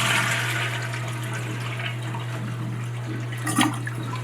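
Toilet flushing with its water supply shut off, so the tank empties and does not refill; the rush of water is loudest at the start and fades. A brief knock about three and a half seconds in.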